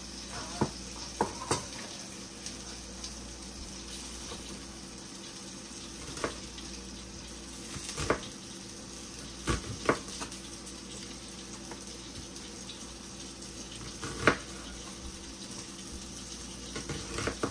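Sausages sizzling steadily in butter in a frying pan, with a few irregular sharp knocks of kitchen utensils, the loudest about 14 seconds in.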